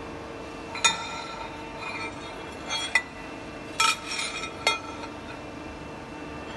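Steel sheet clanking and ringing against the steel tooling of a sheet-metal bending machine: four sharp metallic hits, roughly a second apart, over the steady hum of the running machine.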